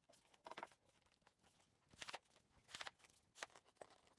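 Near silence with a few faint knocks and rustles of carbon-fibre tripod legs being handled and gathered together.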